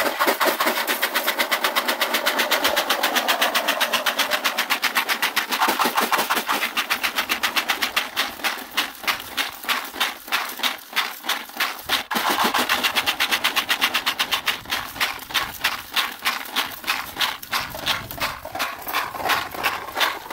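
Gravel and sand rattling inside the Golden Retriever hand-held drywasher, a metal box shaken hard side to side by hand, in a fast, even rhythm of strokes with a brief pause about twelve seconds in. This is the shaking that lets the heavy material drop down while the lighter rocks float up.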